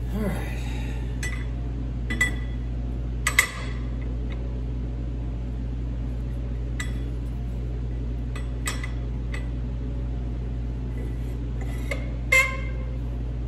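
Scattered light metallic clinks and taps as a new stamped ring gear is set onto a snowmobile Team clutch and turned into line with its bolt holes. The strongest clink comes near the end, and a steady low hum runs underneath.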